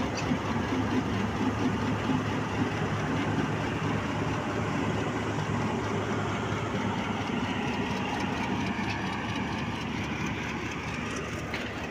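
Diesel locomotive passing close by with its engine running, followed by a power van and passenger coaches rolling over the rails.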